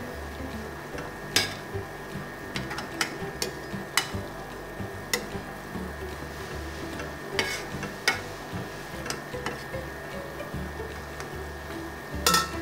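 Metal spoon stirring leaves in a stainless steel pot of boiling water, clinking irregularly against the pot's side, with a quick clatter near the end. Background music plays underneath.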